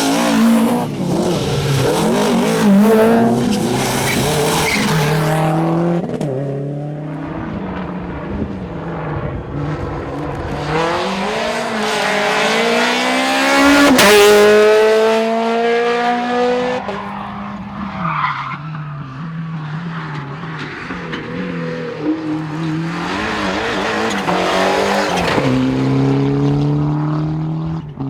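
Rally car engines revving hard, their pitch climbing and dropping with throttle and gear changes, with some tyre squeal. About halfway through, one car comes up loud and passes, its pitch falling as it goes by.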